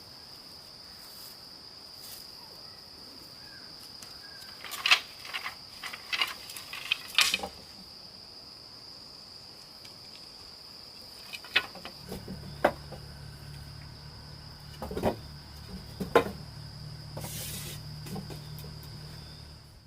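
A steady, high, single-pitched insect drone from crickets or cicadas, with scattered knocks and clicks from handling things, grouped in two clusters. A low hum joins about two-thirds of the way in.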